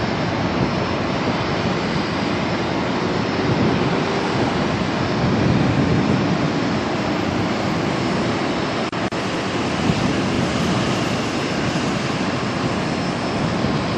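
Jet engines of a twin-engine airliner climbing out after takeoff, a steady roar.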